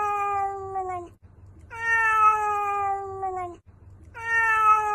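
Domestic cat giving long, drawn-out meows, each sliding slowly down in pitch, repeated about every two and a half seconds.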